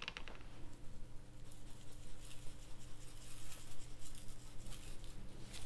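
Seasoning shaken from a shaker onto raw steaks, the granules pattering lightly and unevenly, over a faint steady hum.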